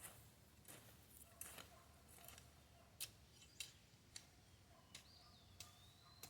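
Faint, irregular crisp scrapes and clicks, roughly one or two a second: a hand weeding tool chopping and scraping through garden soil and weeds.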